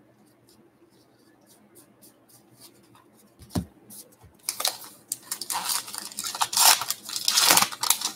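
A trading-card pack's wrapper being torn open and crinkled, loud ripping and rustling over the last three and a half seconds, after a single thump about three and a half seconds in.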